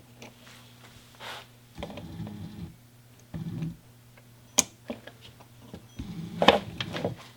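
Small metal clicks and handling noises as a circlip is fitted to hold the cam in place in the throttle cable distribution box: a sharp click about four and a half seconds in and a louder one near the end, with duller fumbling noises between. A faint steady hum runs underneath.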